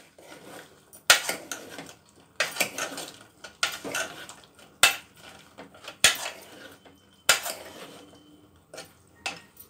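Spoon stirring chunks of fried potato, paneer and boiled peas in an aluminium pot, knocking and scraping against the pot about once a second.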